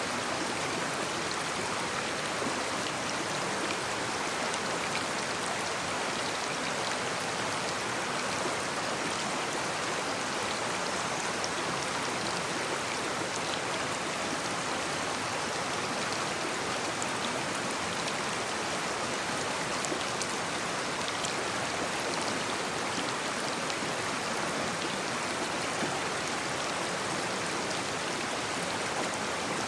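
A shallow brook babbling steadily over stones: a continuous rush of running water with small splashes.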